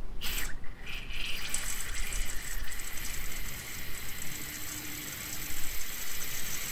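Aerosol brake cleaner hissing from the can into a motorcycle's rear brake line fitting to flush the line. A short burst comes first, then a long steady spray from about a second in.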